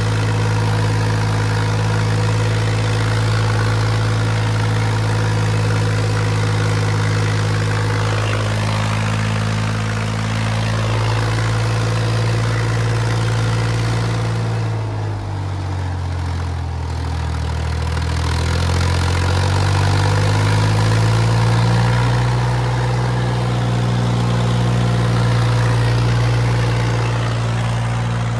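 Massey Ferguson 3060 tractor's diesel engine running steadily. About halfway through, its revs drop for a few seconds and then climb back up.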